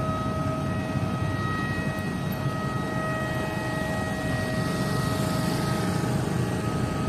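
Tugboat's diesel engines running steadily as it comes to rest against the quay: a low rumble with a steady high whine over it.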